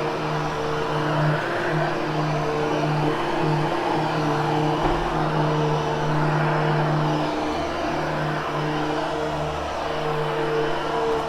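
Hoover HushTone vacuum running steadily while being pushed over a freshly cleaned Triexta carpet, its motor tone wavering in strength as the load changes.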